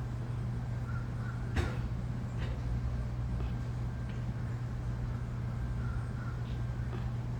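A steady low hum of an idling vehicle engine, with a few faint short bird calls scattered through and a single sharp click about a second and a half in.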